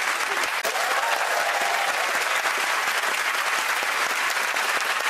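Studio audience applauding, many hands clapping at a steady level.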